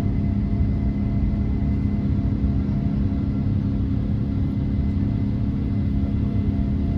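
Boeing 787-9 cabin noise: a steady low roar from the jet engines and airflow, with a constant hum of several fixed tones over it and no change in level.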